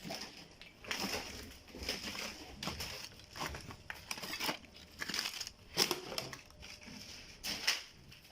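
Irregular crunching and crackling, about one or two a second, like footsteps on broken rubble and debris from a house demolition.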